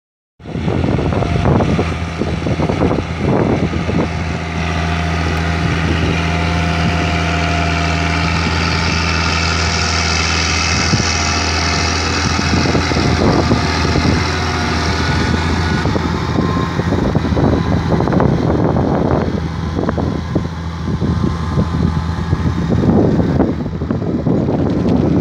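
Case IH tractor's diesel engine running steadily as it pulls a loaded vinasse tank trailer past. The engine's steady hum weakens about two-thirds of the way through as the tank trailer rolls by, leaving rougher rumbling and noise.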